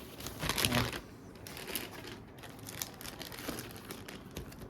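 Plastic packaging crinkling and rustling, with scattered light clicks and knocks, as phones and parts are handled and sorted.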